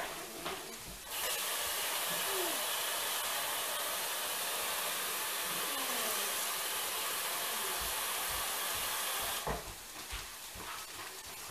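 Water being poured in to cook the rice: a steady hiss that starts abruptly about a second in and cuts off abruptly near the end.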